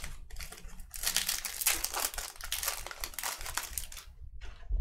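Foil wrapper of a Topps Series 2 jumbo baseball card pack being torn open and crinkled by hand. There is a short crackle at the start, then a dense run of crinkling from about a second in until near the end.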